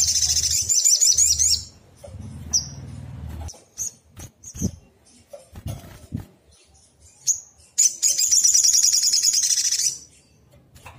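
Olive-backed sunbird singing: a fast, high trilled phrase at the start and another about eight seconds in, with short single chirps between them.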